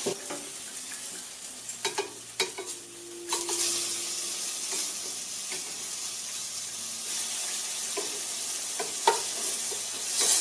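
Turkey burgers and onion slices sizzling on a hot electric indoor grill plate set to sear, a steady hiss. Sharp clicks and taps come now and then, the loudest about 9 seconds in, as metal tongs turn the onion slices on the grill grates.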